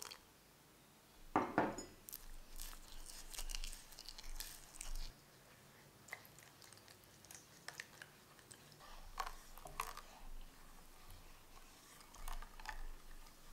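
Black silicone spatula stirring and scraping a thick egg-yolk and sugar paste in a white saucepan as lemon juice is poured in: wet squelching and squishing with short scrapes against the pan. The loudest squelch comes about a second and a half in.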